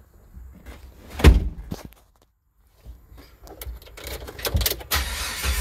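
Knocks and rustling of a hand-held camera inside a Jeep cabin, with one loud thump about a second in. Near the end a rising noise as the 2005 Jeep Wrangler Rubicon's 4.0-litre straight-six is cranked over for a cold start.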